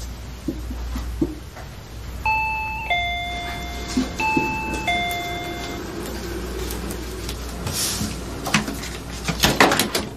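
Electronic two-tone doorbell chime rung twice, a higher note falling to a lower one each time, the ring of a visitor at the front door. Near the end comes a quick run of clicks and knocks.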